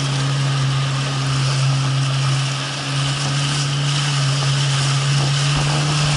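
Jet ski engine running at a steady throttle while under way, a constant hum over the hiss of water spray off the hull.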